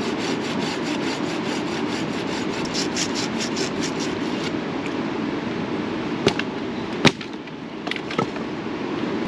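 Steady rush of a swollen river, with a quick run of rhythmic scraping strokes, about five a second, that stops about halfway, then a few sharp knocks, the loudest about seven seconds in.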